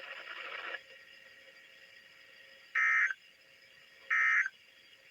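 NOAA Weather Radio SAME end-of-message data bursts: short, harsh digital squawks about 1.3 seconds apart, two of them about halfway through, closing the weekly test broadcast. A brief hiss comes before them.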